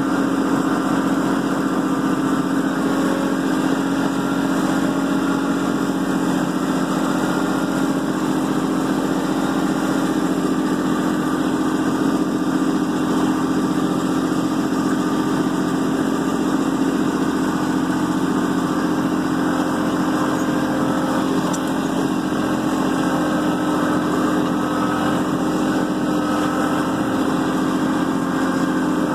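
Kubota B2650 compact tractor's three-cylinder diesel engine running steadily, heard from the operator's seat, while the tractor drives carrying logs in its front loader bucket.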